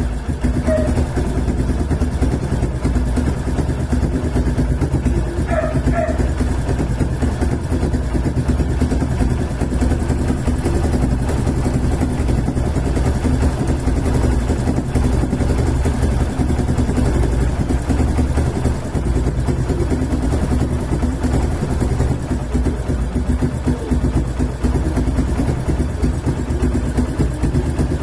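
TVS Star City motorcycle's single-cylinder four-stroke engine idling steadily while its idle speed is set at the carburettor idle screw.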